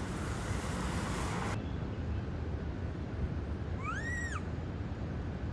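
A long-tailed macaque gives a single short coo, a clear meow-like call that rises and falls, about four seconds in. A steady low rumble runs underneath, and a hiss cuts off suddenly about a second and a half in.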